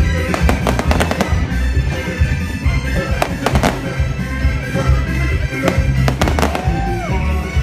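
Fireworks going off in clusters of sharp bangs, about a second in, around the middle and again near the end, over music with a heavy, steady bass.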